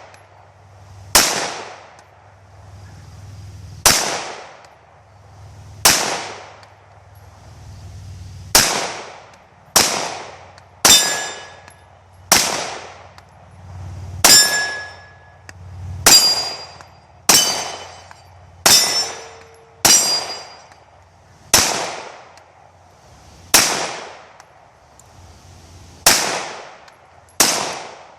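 Glock 17 9mm pistol fired in slow, steady single shots, about sixteen at one to two and a half seconds apart. Many shots are followed by the brief metallic clang and ring of steel targets being hit.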